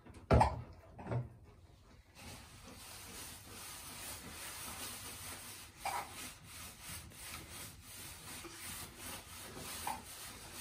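Hands scrubbing shampoo through a wet malamute's soaked fur, a steady rubbing hiss. Two loud thumps come within the first second and a half.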